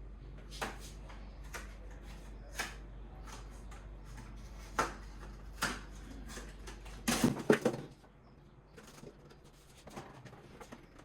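Groceries and containers being handled and set down: scattered light clicks and knocks, then a louder clatter of several knocks about seven seconds in. A low steady hum stops at the same moment.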